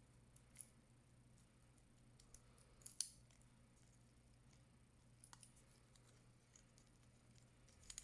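Near silence with a low steady hum, broken by a few faint, short handling clicks; one sharper click comes about three seconds in.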